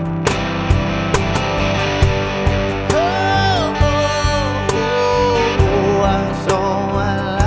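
Live country-rock band playing an instrumental break: drums keep a steady beat about twice a second under bass, and a guitar lead plays notes that slide and bend up and down, with no singing.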